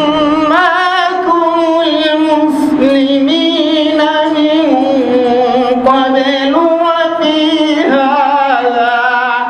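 A man reciting the Qur'an solo in melodic chant, with no instruments. He holds long, wavering notes that step up and down in pitch, with brief breaks for breath.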